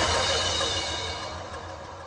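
Background music ending: a last held chord dies away, fading steadily toward silence.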